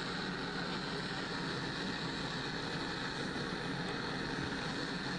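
Propane gas burner of a glass beadmaking oven running, a steady, even rushing flame noise.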